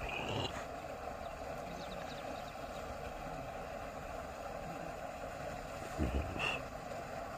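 Steady outdoor background noise, with a short rising high chirp near the start and again near the end, and a brief low thump just before the second chirp.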